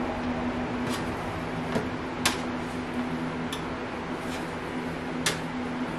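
Kitchen room tone: a steady low hum over a soft hiss, with about six sharp, light clicks spread through it.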